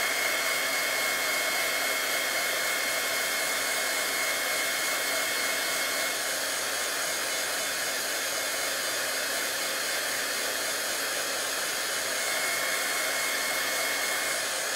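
Craft embossing heat gun blowing steadily, melting embossing powder over stamped images on cardstock. A steady rush of air with a faint high whine from the tool's fan.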